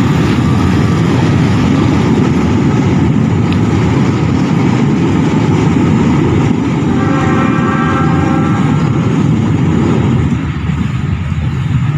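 Freight train of fuel tank wagons running past with a dense, loud low rumble that eases off near the end. A steady pitched tone sounds for about two seconds midway.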